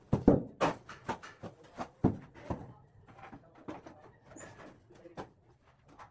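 Shovel scraping and knocking through wet plaster mortar on a concrete floor as it is mixed: irregular short scrapes and knocks, loudest in the first second and around two seconds in, thinning out after.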